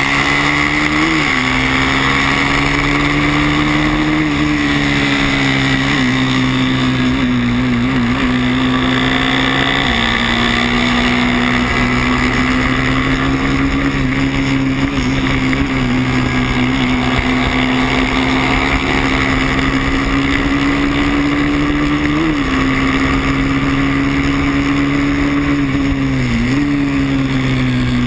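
Small racing motorcycle engine heard onboard, its note held nearly steady under hard riding, with short dips and blips every few seconds as the throttle or gear changes. Wind rush over the camera is heard as well.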